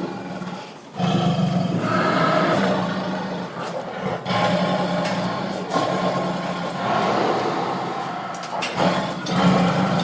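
Angry tiger roaring: a run of long, rough calls with short breaks between them, about five or six in all.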